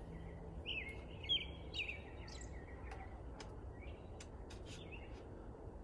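A bird chirping over and over in short high calls, about one every half second, over a low steady hum, with a few faint clicks from rig handles being fitted onto a metal rail.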